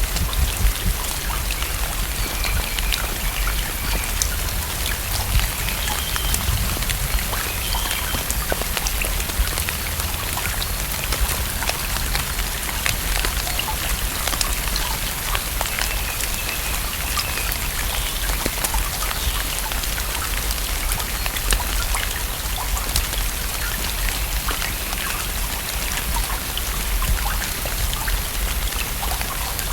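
Steady rain falling on a lake: a dense patter of individual drops over an even hiss.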